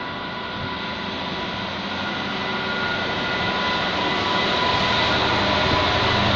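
Diesel locomotive passing close by, its engine running with a steady high whine, growing louder as it draws nearer.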